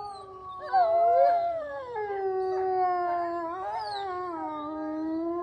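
Soundboard sound effect of several canines howling together: long overlapping howls that slide up and down in pitch, with more voices joining about a second in.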